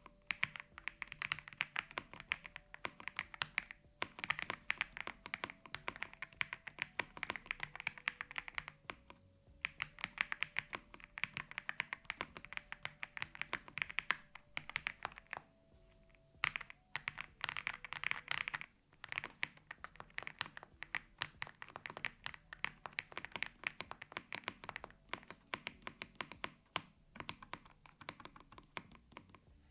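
Aula F108 full-size mechanical keyboard being typed on fast in a typing test: a steady stream of key clacks with a few short pauses. Some of the stabilized keys tick on the press or on the return.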